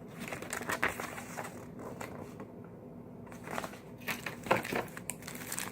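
Rustling and crinkling of foil-wrapped trading card packs and paper inserts being handled and pulled from an opened cardboard box, with small clicks, busier about two thirds of the way through.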